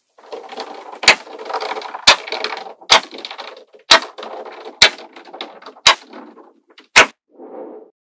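Small magnetic balls clicking and rattling as a chain of them is peeled up off a sheet of balls: a sharp snap about once a second, with quick clattering between the snaps.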